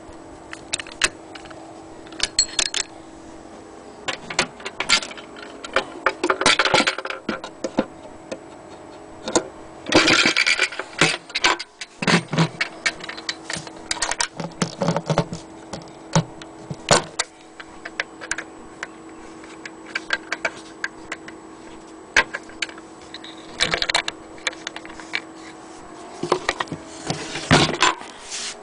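Irregular clicks, knocks and rattles from handling an antique sewing machine's wooden carrying case: the cover fitted onto its base and the small metal hook latches and lock plate worked by hand.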